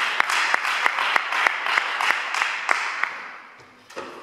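Audience applause with individual sharp claps standing out, dying away over about three seconds.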